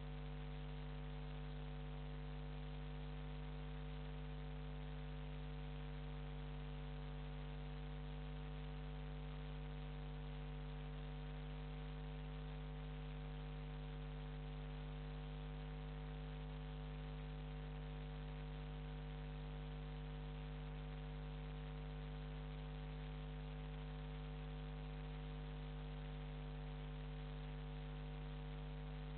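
Steady 50 Hz electrical mains hum with its overtones and a faint hiss, unchanging throughout. No boat engine stands out above it.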